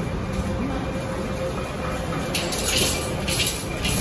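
Steady low background rumble of a tram station, with a faint steady hum that fades about halfway and a few short hissy scuffs in the second half.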